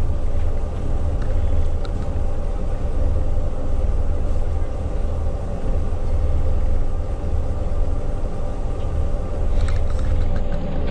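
Bus engine idling while the bus stands still, heard from inside the passenger cabin as a steady low rumble. A few light clicks near the end.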